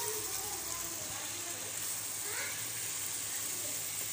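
Beef spleen masala sizzling in oil in a pan, a steady hiss as the thick gravy is fried down (bhuna).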